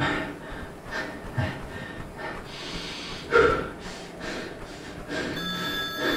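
A man breathing hard and rhythmically, puffing about twice a second while running on a treadmill, with one loud gasp about halfway through. A phone starts ringing near the end.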